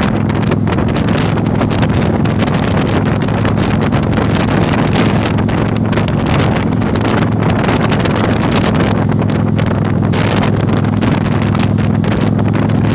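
Heavy wind buffeting on the microphone while riding a Yamaha Virago 1100, with the motorcycle's V-twin engine running at a steady pitch underneath.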